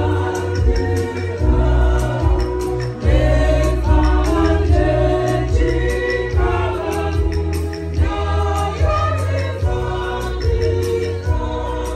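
Gospel choir music: many voices singing together over a heavy bass line and a light steady beat.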